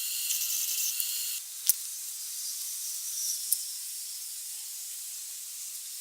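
Welder arc crackling and hissing, which cuts off suddenly about a second and a half in. A single sharp click follows, then only a faint steady hiss.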